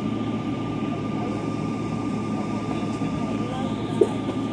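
Cabin noise inside a Boeing 777-200ER taxiing: a steady low rumble of the engines at taxi power with a constant high whine over it. A single short, sharp knock about four seconds in.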